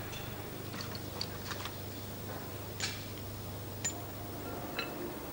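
Light metallic clicks and taps of small engine parts being handled and fitted during hand assembly of a Cosworth DFV V8, about seven scattered ticks over a steady low hum that fades near the end.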